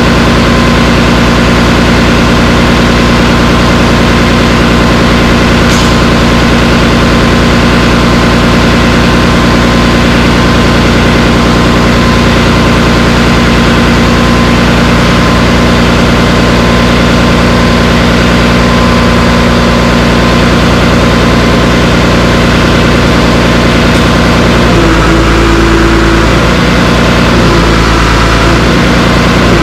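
Cat D3C Hystat dozer's diesel engine running steadily. About 25 seconds in the sound changes, with a strong higher tone coming and going over the engine note.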